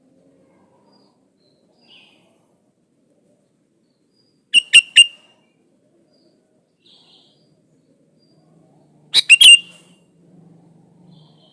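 Sooty-headed bulbul calling: two loud bursts of three quick, sharp notes about four and a half seconds apart, with a few faint calls in between.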